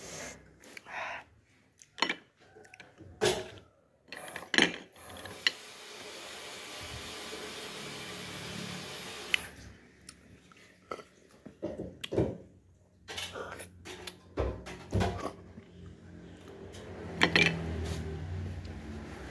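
Sharp clicks and clinks of steamed snail shells and dishware being handled on a plate, scattered irregularly, with a steady hiss for about four seconds in the middle.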